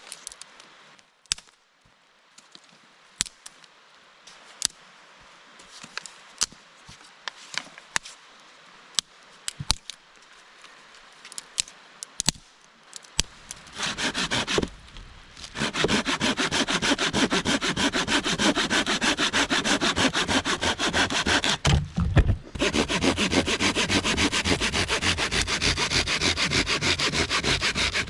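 A hand saw cutting through firewood with fast, steady strokes, starting about halfway through and pausing briefly once. Before it come scattered sharp snaps and clicks.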